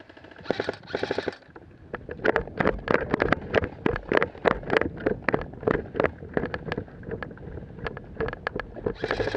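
Footsteps crunching on a dirt track with gear rattling, a quick, irregular run of knocks, with a brief hiss about half a second in and another near the end.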